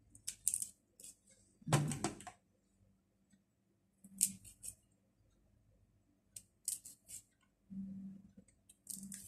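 Tough, fibrous green skin being stripped and snapped off moringa pods: a handful of short, crisp scraping snaps a second or two apart, the loudest about two seconds in with a dull knock on the plastic cutting board.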